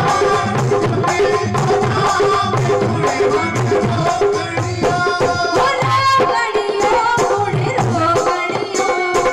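Live Hindu devotional bhajan music: a hand-drum rhythm under a steady melody line.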